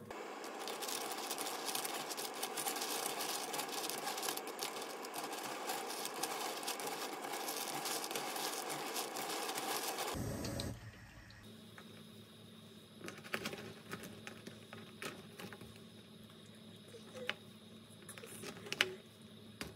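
Pot of water with cockles heating on a gas burner, a dense crackling hiss. After an abrupt cut it turns quieter: a wooden spoon stirs the cockles in the boiling water, with scattered clicks of shells and spoon against the pot over a faint steady hum.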